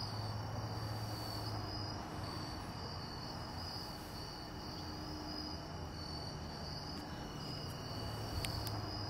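Insects chirping in a steady pulsing rhythm, with a low hum underneath.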